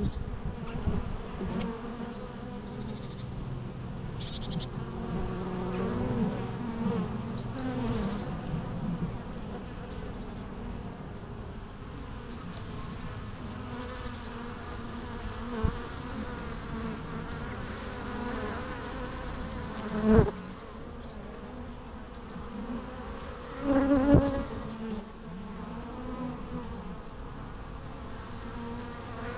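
Bees buzzing: a steady, many-voiced hum with single bees' tones sliding up and down as they fly past. A sharp tap about two-thirds of the way through, and a few seconds later one louder buzz lasting about a second.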